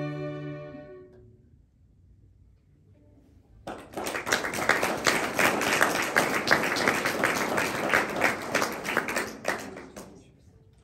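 A string quartet's final held chord dying away in the first second or so, then after a short pause applause, many hands clapping for about six seconds before it fades out.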